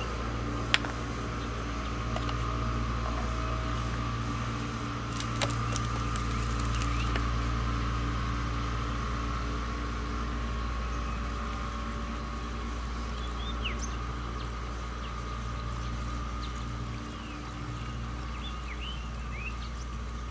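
A steady low mechanical hum, like a motor or engine running, continues throughout. A few sharp clicks come in the first seconds, and birds chirp now and then in the second half.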